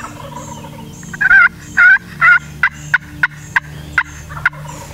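Wild turkey calling loudly: three longer notes followed by a run of about eight short, sharp notes, a little over three a second.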